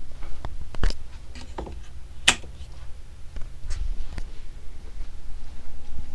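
NuTone Proline industrial ceiling fan running, a steady low rumble with scattered clicks and ticks, the sharpest about two seconds in.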